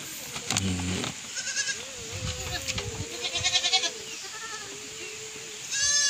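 Several goats bleating in short, quavering calls, one after another, with the loudest bleat right at the end.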